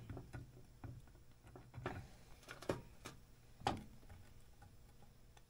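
Faint scattered clicks and taps of metal parts being handled as a bolt is started by hand into a snowmobile chain case, with a few sharper taps around the middle.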